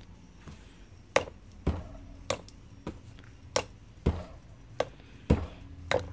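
Fingers flicking a plastic Nendoroid figurine on its acrylic stand: about nine sharp taps, roughly every half second to second.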